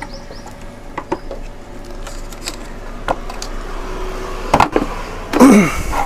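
Hard plastic parts of a tabletop wet grinder knocking and clicking as the wheel is worked down onto its shaft in the base. Near the end comes a louder scrape with a creak falling in pitch as it is pressed home.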